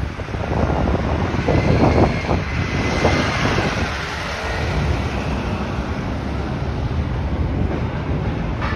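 A 2014-model city route bus pulling away from the stop, its diesel engine accelerating as it drives off. It is loudest in the first few seconds, with a faint whine. Street traffic noise and wind on the microphone continue after it.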